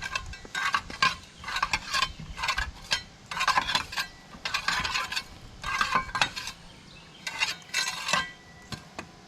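Hand tool scraping packed mud and debris off excavator tracks in short, irregular strokes with a gritty, metallic edge, before the machine is started.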